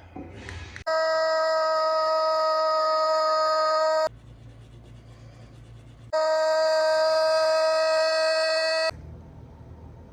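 Two long, steady horn blasts, each about three seconds, starting and stopping abruptly, with a low hum between them.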